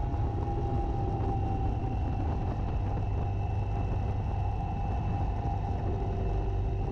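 Motorcycle engine running at a steady cruising speed, with wind and road noise, heard from a camera mounted low on the bike.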